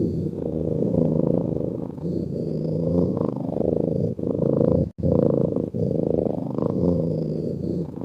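Cat snoring: a steady, rough, low rumble that swells and eases with each breath every couple of seconds. There is a sudden brief break in it about five seconds in.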